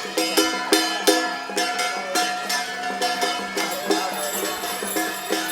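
Music with percussion striking about three times a second over several held steady tones.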